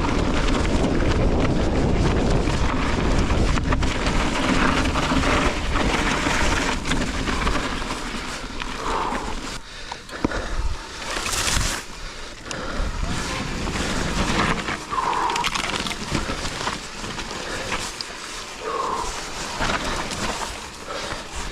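Mountain bike riding down a rough, rocky trail: tyres rolling and crunching over rock and dirt, the bike rattling, and wind buffeting the camera microphone. The rumble is heaviest for the first eight seconds or so, then turns choppier and a little quieter.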